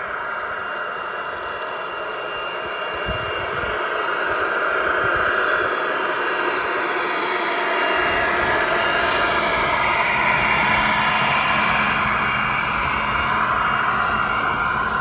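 G scale model train with two GE Dash 9 diesel locomotives passing close by: a steady rushing running sound that grows louder as the locomotives approach, with a deeper rumble joining about eight seconds in as they go past.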